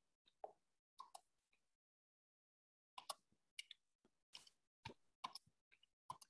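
Faint, scattered clicks of computer keys being pressed, often two close together, in a quick run after a pause of about a second.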